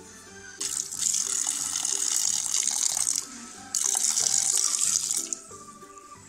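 A stream of water poured into a cooking pot of chopped vegetables and spices, splashing in two pours of about two and a half and one and a half seconds with a short break between.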